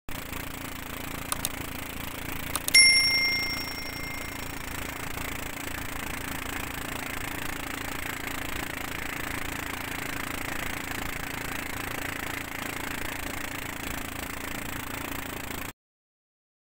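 Two clicks and then a single bright bell ding about three seconds in: the notification-bell sound effect of a subscribe-button animation. Under it runs the steady hum of a boat engine with wind and the wake rushing past as the boat moves across open water. The sound cuts off abruptly near the end.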